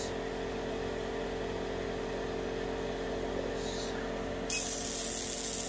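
50 W CO2 laser cutter humming steadily with a few held tones. About three-quarters of the way through, a loud hiss lasting about a second and a half cuts in.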